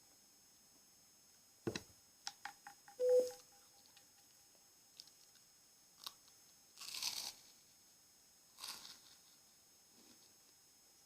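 Scattered close-miked taps, clicks and rustles, with a brief squeak about three seconds in and two soft swishes around seven and nine seconds.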